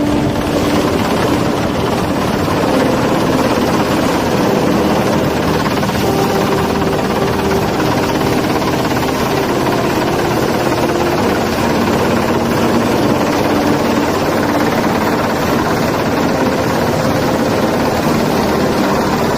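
Helicopter rotor and engine noise, steady and loud.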